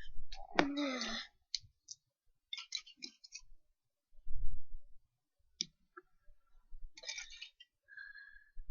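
Lego bricks clicking and clattering as a Lego car is pulled apart by hand, in several short bursts, with a dull bump a little past four seconds in.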